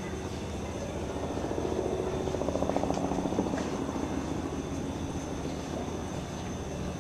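A passing engine with a fast throbbing pulse, swelling to its loudest about three seconds in and then fading.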